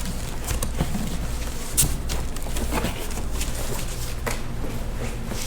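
Steady low hum, with a few scattered knocks and rustles from a new welder's box and its packaging being opened and handled.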